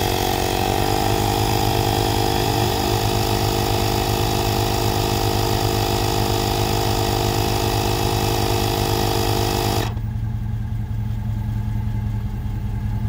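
Joytutus portable tire inflator's compressor running as it pumps up a car tire, its pitch settling in the first second, then cutting off abruptly about ten seconds in as it reaches its 40 PSI preset and shuts itself off. A steady low hum continues underneath.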